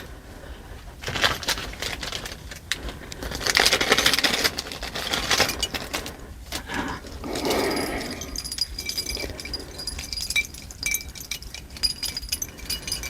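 Metal clip-on earrings being handled: irregular small clicks and clinks from the clips and metal parts, with stretches of rustling handling noise.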